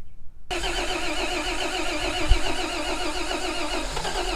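The starter motor cranks the 1949 White WB-20 tow truck's engine. It starts suddenly about half a second in and turns it over in an even rhythm, with one low thump near the middle. The engine is not catching, which the crew suspects is the ignition coil losing voltage while the starter is drawing current.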